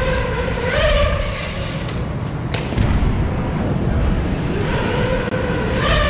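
Mountain bike rolling on wooden ramps with a steady low rumble. A buzzing tone rises and dips in pitch near the start and again for the last second and a half.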